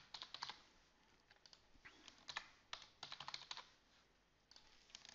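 Computer keyboard being typed on in short runs of quick keystrokes, as words are entered, with a pause of about a second near the end.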